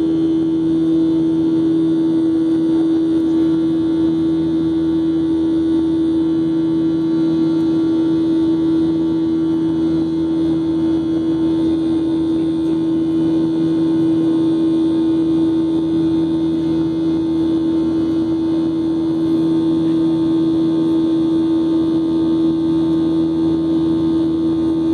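Cabin noise of a Boeing 737-700 in the climb after takeoff: its CFM56-7B jet engines and the air rushing past make a loud, steady drone with a constant low hum note running through it.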